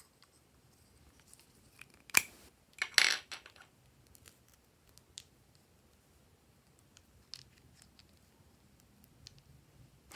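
Small plastic items handled by hand: a sharp click about two seconds in, a brief rattling scrape just after, then scattered light clicks and taps.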